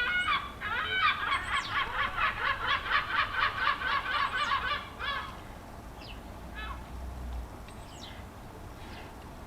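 Birds calling: a fast run of repeated calls, about four or five a second, for the first five seconds, then only a few scattered calls.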